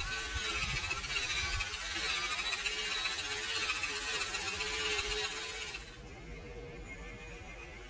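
Traxxas TRX-4 RC crawler's electric motor and geared drivetrain whining, rising and falling in pitch with the throttle as the truck crawls over rock. The sound drops to a much quieter background about six seconds in.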